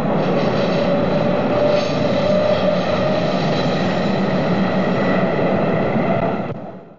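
A train running: a steady rumble with a held whine, fading out near the end.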